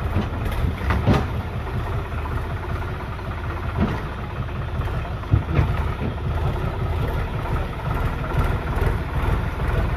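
Tractor's diesel engine running steadily at low speed as it drives through floodwater, with a few brief knocks.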